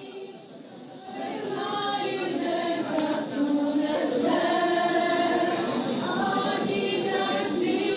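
A large crowd singing a traditional Ukrainian folk song together, many voices in unison. The singing is faint at first and swells to full voice about a second in.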